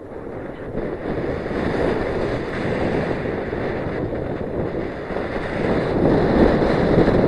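Wind rushing over the camera microphone as a mountain bike rolls fast down a loose dirt and gravel trail, with tyre and trail rumble mixed in. It gets louder about a second in, and again near the end as speed builds.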